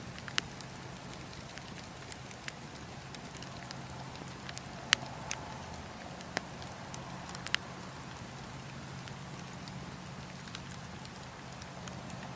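Bonfire crackling: scattered sharp pops and snaps over a steady low background, the loudest pop about five seconds in and a quick cluster of them around seven and a half seconds.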